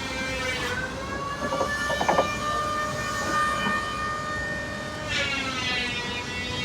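Background music led by a wind instrument holding long, steady notes, with a new note sliding in about five seconds in.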